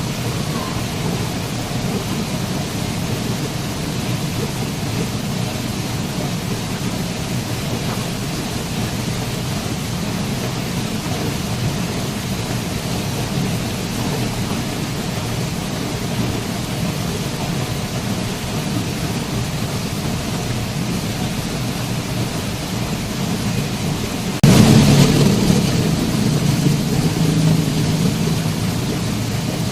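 Waterfall: a steady rush of falling water. About three-quarters of the way through, a sudden louder surge begins and fades back over several seconds.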